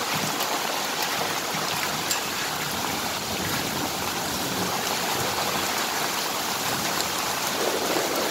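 Hailstorm: hail and rain falling steadily on the street and parked cars, with water and slush rushing down the road.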